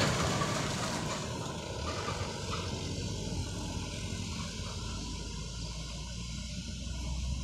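Truck engine running as a loaded truck drives away, fading over the first couple of seconds and then settling into a low steady drone of engine noise.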